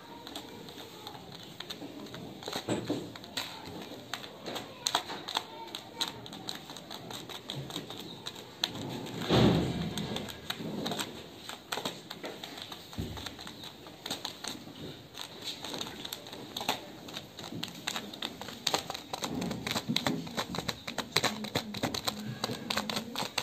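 Light, irregular finger taps on the underside of a paper sheet spread with iron filings around a bar magnet, tapping the filings into the magnet's field-line pattern. One louder, longer noise about nine seconds in.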